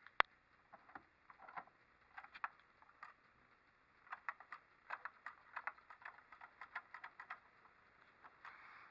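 A keycard being slid in and out of a hotel door's electronic lock and the lever handle being tried, giving a run of light clicks and taps, busiest in the second half. A single sharp click just after the start is the loudest. The card does not open the lock.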